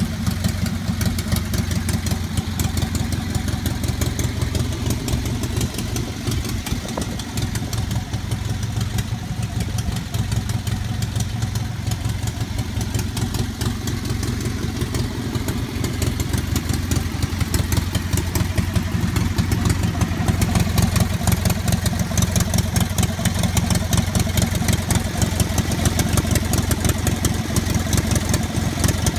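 The Westcoaster truck's small Onan commercial engine running steadily at idle, a fast, even putter.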